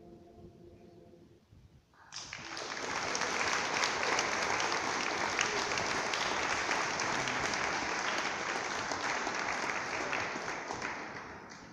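A choir's last held chord dies away in the first second, then an audience applauds in a cave: clapping breaks out about two seconds in, stays steady for about nine seconds and fades out near the end.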